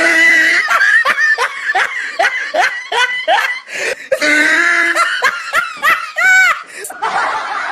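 Loud laughter in quick, even 'ha-ha' bursts, about three a second, trailing off near the end.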